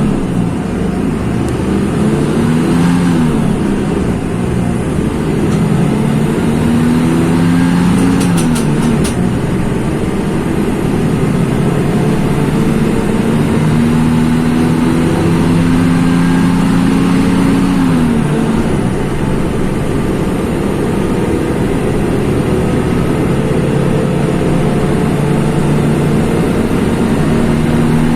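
Mercedes-Benz OF-1724 bus's OM-926 LA six-cylinder turbodiesel pulling under load through a manual gearbox. Its note rises as it accelerates and drops at gear changes about 3, 8 and 18 seconds in, then runs steadily.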